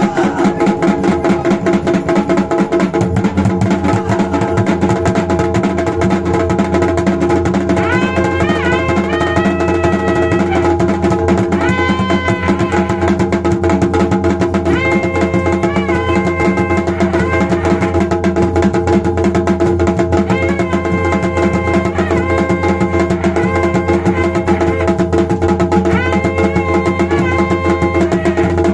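Jagar ritual music: a large barrel drum (dhol) beaten in a fast, steady rhythm over steady ringing tones, with a higher pitched melodic line coming in several times.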